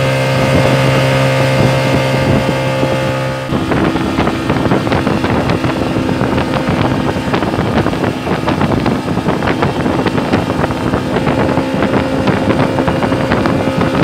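Outboard motor of a small passenger boat running at speed, with water rushing past the hull and wind on the microphone. The engine note changes abruptly about three and a half seconds in.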